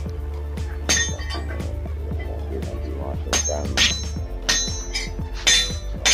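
Several sharp metallic clinks of hand tools striking metal parts, each with a short ringing tail, spaced irregularly over a steady low hum.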